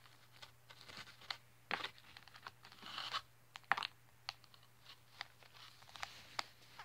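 Fingers pressing and pinching a sticky, crunchy lump of food into shape: faint, scattered crackles and clicks.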